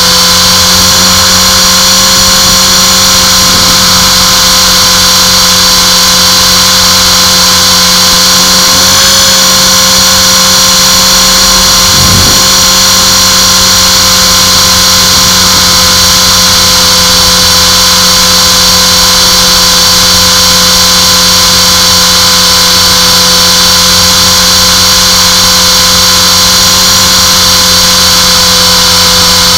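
Align T-Rex 450 electric RC helicopter in flight: a loud, steady high-pitched whine from its motor and gears over the rotor noise, with a slight wobble in pitch about nine seconds in.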